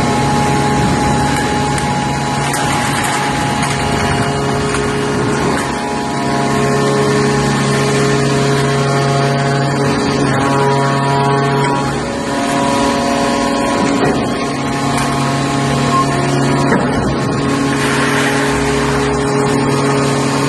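Industrial aluminium UBC (used beverage can) baler running on a test: a loud, steady machine hum with several held tones, dipping briefly a few times.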